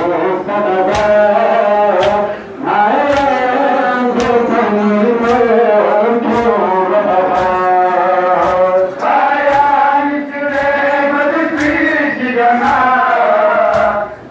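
Male voices chanting a Shia mourning lament (noha) in Balti, punctuated by crowd chest-beating (matam) slaps about once a second. The chant dips briefly a little after two seconds in.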